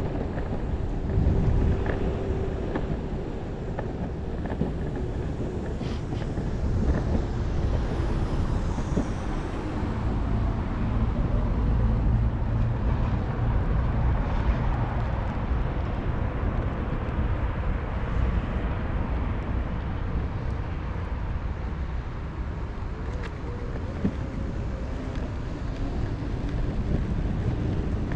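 Wind buffeting the microphone over the rolling rumble of electric skateboard wheels on pavement while riding, with a faint steady hum in places.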